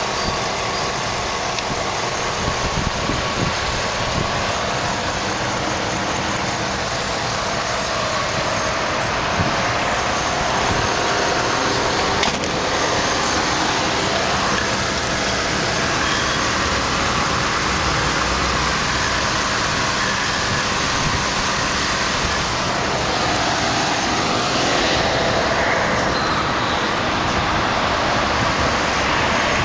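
Dodge Ram pickup's engine idling steadily.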